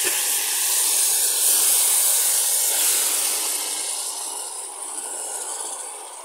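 Hot caramel of melted sugar hissing and steaming violently where water has just been poured into it, a loud, dense hiss that fades steadily over the last few seconds as the boil settles.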